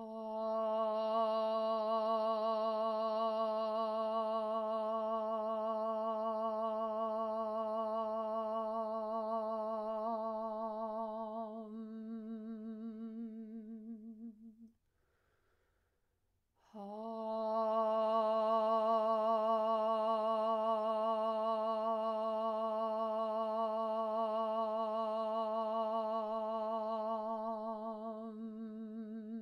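A woman's voice toning two long sustained notes on one pitch as healing sound, with a breath pause of about two seconds about halfway through. Each note softens toward a hum and wavers slightly as it fades.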